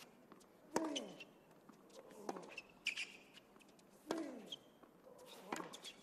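Tennis rally on a hard court: the ball is struck back and forth about every one and a half seconds, four hits in all. Alternate hits are louder, each followed by a player's grunt falling in pitch. A few shoe squeaks are heard midway.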